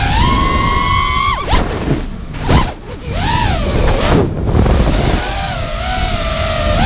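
FPV quadcopter's brushless motors whining, the pitch rising and falling with the throttle: a long rising whine held high and then cut off suddenly about a second and a half in, two short throttle blips, then a steadier wavering whine from about five seconds in. A rush of wind noise runs underneath.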